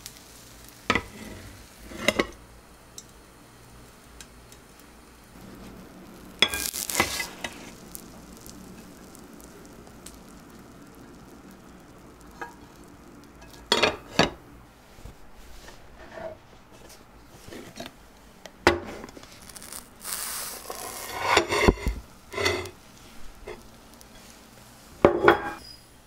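A nonstick frying pan and a ceramic plate knocking and clattering in scattered sharp clinks as a half-cooked Spanish tortilla is flipped out onto the plate and slid back into the pan. There are two short bursts of sizzling oil, about six seconds in and again about twenty seconds in.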